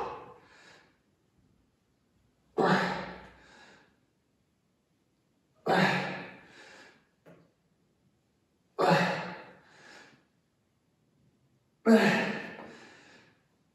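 A man's forceful exhalations with a slight voiced grunt, one per rep about every three seconds, each sharp at the start and trailing off: breathing hard under load during dumbbell Bulgarian split squats.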